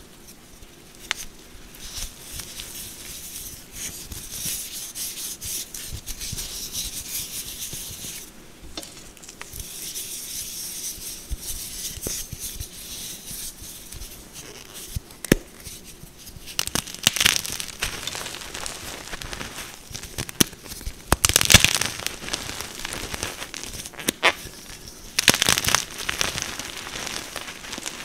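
Fresh BSN gym chalk blocks being crushed: crisp crunching and crumbling of the chalk with a soft powdery rustle. Several louder crunches come in the second half.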